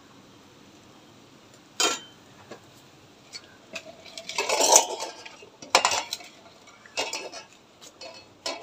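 A steel ladle clinks and scrapes against a steel bowl of neyyappam batter as batter is stirred and scooped. There are a few sharp clanks, with a longer, louder stretch of stirring around the middle.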